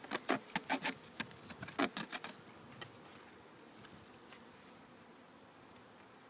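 A quick run of sharp clicks and knocks from hive parts being handled over the first couple of seconds, then the faint hum of honey bees in the open hive.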